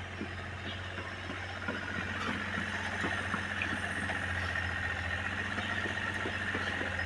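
An engine running steadily with a low hum, joined about two seconds in by a steady high whine, with scattered light knocks of buckets and tools being handled.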